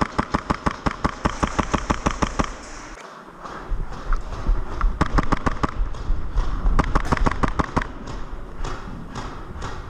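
HPA-powered Action Army AAP01 airsoft gun in an MP7-style kit firing on full auto: a fast, even string of sharp shots, about nine a second, ending about two and a half seconds in. After a short lull, shorter bursts and single shots follow.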